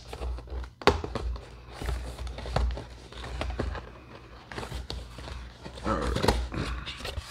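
Cardboard and paper packaging being handled while a camera box is unpacked: a run of rustles, clicks and light knocks. A brief wavering pitched sound comes about six seconds in.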